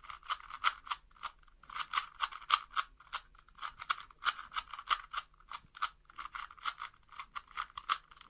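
Rubik's cube being turned rapidly by hand: a quick run of plastic clicks and clacks, several a second, in flurries broken by brief pauses.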